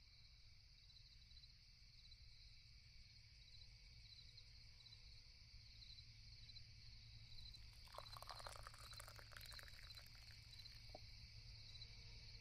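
Faint crickets chirping steadily in a night-time field. About eight seconds in there is a short burst of clicks and rustling.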